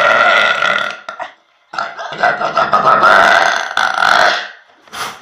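A young woman burping loudly twice: a short burp at the start, then a longer drawn-out one lasting about two and a half seconds.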